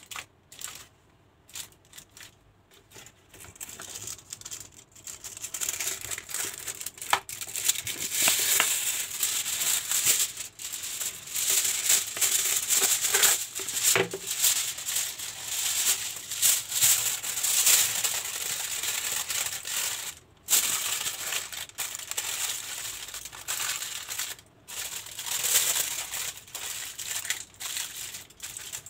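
Aluminium foil crinkling and crumpling as hands fold it around a whole chicken. It is quiet for the first few seconds, then becomes a dense, continuous crackle with a couple of brief breaks later on.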